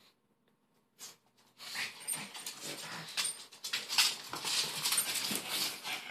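A pug and a Boston terrier playing at close range: dog noises and scuffling. It starts about a second and a half in and stays busy and uneven.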